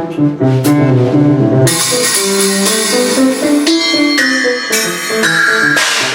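Live keyboard and drum-kit jam: keyboard chords and a moving bass line, with a few sharp hits early on and a bright cymbal wash coming in about a second and a half in.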